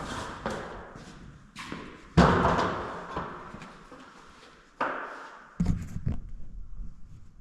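Several sharp knocks and thuds, each dying away slowly; the loudest comes about two seconds in, and others follow near the five- and six-second marks.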